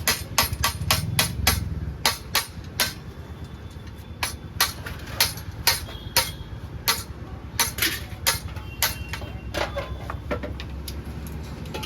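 Hammer striking metal in a fast, irregular run of sharp blows, about three a second, with a faint high ring after some strikes.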